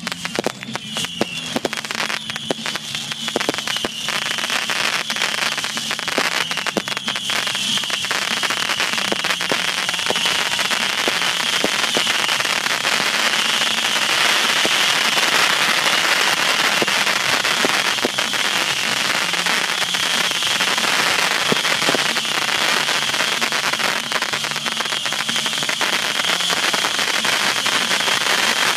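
Ground fountain firework crackling densely over a steady hiss as it sprays sparks, building up over the first few seconds and then holding steady.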